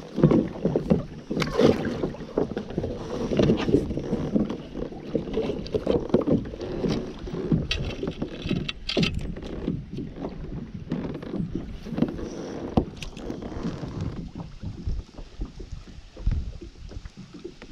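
Water sloshing and knocking against a small boat's hull, with irregular knocks from movement in the boat and wind on the microphone.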